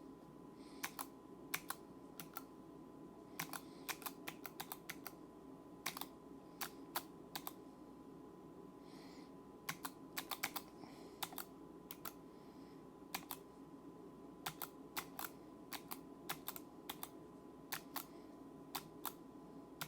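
Keystrokes on a small mechanical keyboard built into a phone case, a Pimoroni Keybow 2040 with low-profile switches and 3D-printed keycaps: irregular sharp clicks, sometimes several in quick succession, with short pauses between runs.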